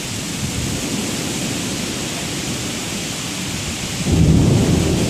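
Steady downpour of thunderstorm rain hissing, with a low rumble of thunder breaking in about four seconds in.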